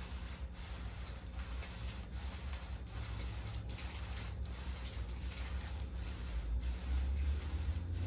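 Hands rubbing and shifting over a patient's body during slow chiropractic soft-tissue work, a soft steady rustle over a low hum, slightly louder near the end. No joint crack is heard.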